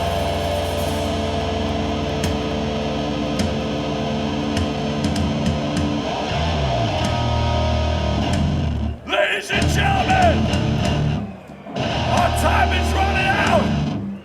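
Live hardcore punk band's distorted electric guitars and bass holding ringing notes between songs, with a bass slide partway through, then cutting out and starting again in short stops after about nine seconds.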